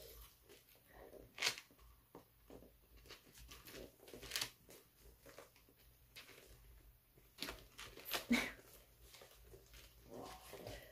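Faint handling of a quilted handbag while its metal push-lock clasp is worked: scattered small clicks and rustles, the sharpest about a second and a half in, about four and a half seconds in, and a cluster near eight seconds.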